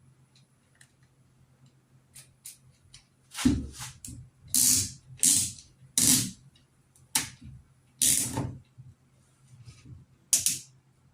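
Aerosol can of PB Blaster sprayed onto a mini chainsaw's chain in several short hissing bursts, starting a few seconds in, with knocks of the saw being handled.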